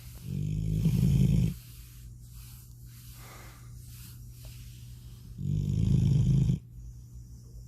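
Deep snoring: two loud, low rattling snores about five seconds apart, each lasting just over a second and ending abruptly, with quiet breathing between them.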